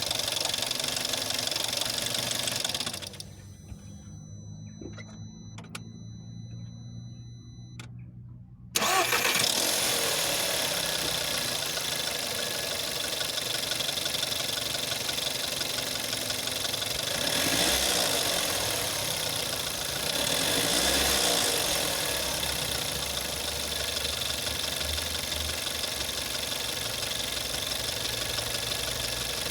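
VW 1.4 TSI (CAXA) petrol engine running, shut off about three seconds in, then restarted with a sudden loud start-up about nine seconds in and left running. It shows the cold-start crackle and knock that the owner suspects is the timing chain, although the chain has tested as not stretched.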